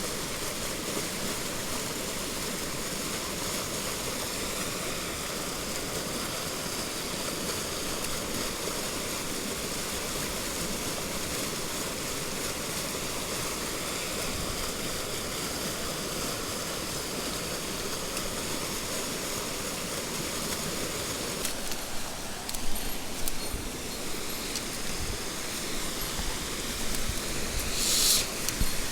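Mountain stream water running steadily. In the last several seconds, irregular knocks and rustles come through on top, with a brief sharp hiss near the end.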